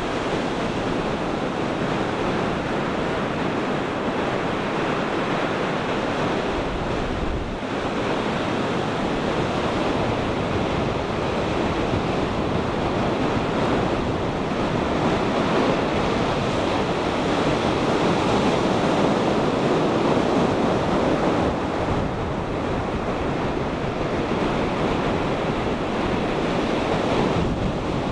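Ocean surf breaking on a beach, a steady rush of waves, with wind buffeting the microphone.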